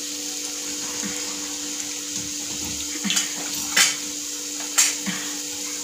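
Batter-coated green chillies deep-frying in hot oil: a steady sizzling hiss, with a few sharp clicks about three to five seconds in as a wire skimmer moves through the pan.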